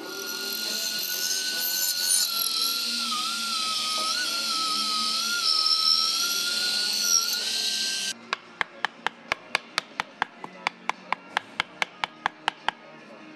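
A power tool running with a hiss and a wavering high whine, cutting off suddenly about eight seconds in. It is followed by a run of sharp, evenly spaced clicks, about five a second.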